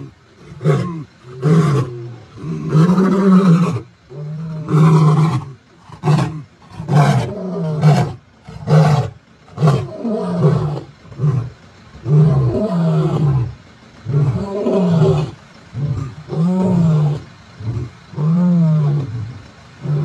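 Male African lions roaring: a long bout of deep roars and shorter grunts, about one call a second, some drawn out and some clipped short.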